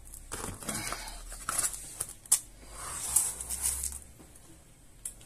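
Handling noises as a laptop screen panel is worked apart by hand: scattered clicks, creaks and scrapes, with two sharper clicks around the middle.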